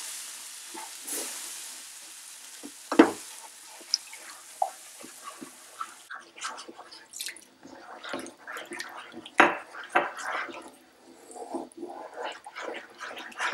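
Wooden spoon stirring a thickening milk-and-flour white sauce in a nonstick frying pan: irregular scraping and light knocks against the pan, with one sharper knock about three seconds in. A soft sizzle under the first half fades out about six seconds in.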